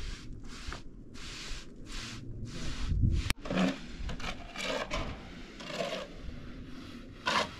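Repeated scraping strokes, about two a second, then a sharp click and more irregular scrapes, with one louder scrape near the end.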